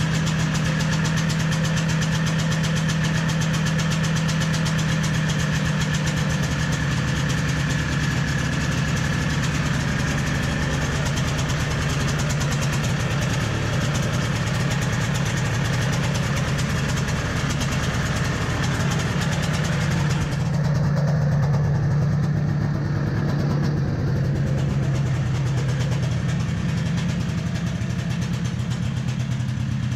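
Yamaha Bravo snowmobile's single-cylinder two-stroke engine idling steadily, with a small rise in loudness and change of tone about two-thirds of the way through. It is running on six-month-old gas and an old spark plug at its first start of the season.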